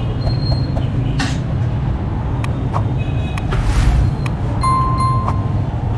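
Jalebi deep-frying in a wide karahi of hot oil, with a steady low rumble under the sizzle and scattered clicks as metal tongs turn the coils. A brief hiss a little after halfway, and a short beep near the end.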